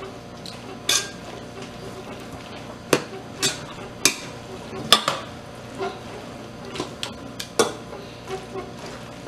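Kitchen tongs tossing spaghetti in an enamel pot, knocking and clinking against the pot's rim and sides at irregular intervals, with soft stirring in between.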